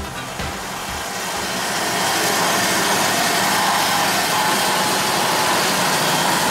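PEGAS-GONDA 600 CAMEL-X band saw cutting through a bundle of steel tubes: a steady, dense mechanical noise that grows louder over the first two seconds, then holds.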